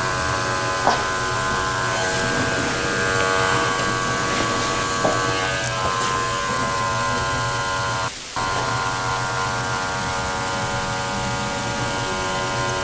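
Small electric dog-grooming clipper running with a steady buzz as it is worked through a toy poodle's coat close to the skin. It cuts out briefly a little past halfway.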